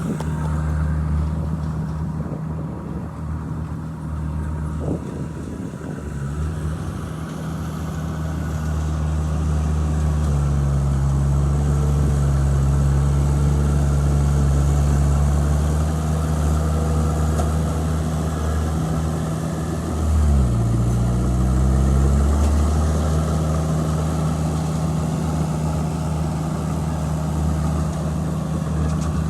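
Heavy diesel engine of earthmoving machinery running steadily. About ten seconds in it grows louder and slightly higher, and around twenty seconds in its pitch briefly drops and recovers.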